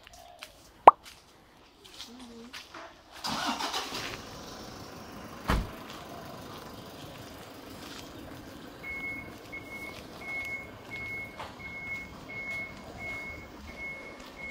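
A vehicle's engine running, with a sharp click about a second in and a thump about five seconds in. About nine seconds in, a reversing beeper starts: a steady high beep about every two-thirds of a second.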